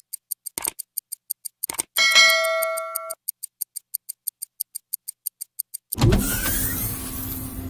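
Intro sound effects: a clock ticking about five times a second, with short swishes and a bright chime about two seconds in that cuts off abruptly after a second. About six seconds in the ticking stops and a loud rushing whoosh with a low rumble takes over.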